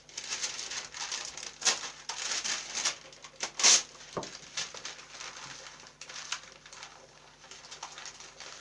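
Parchment paper crinkling and rustling as packets are wrapped by hand, busiest in the first few seconds with a couple of sharper crackles, then softer handling.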